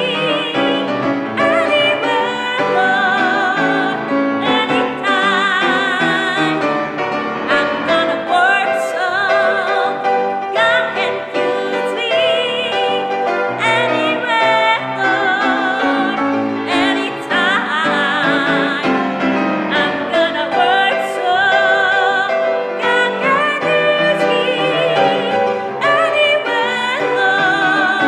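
Music: a solo singer with strong vibrato in a classical style, over piano accompaniment.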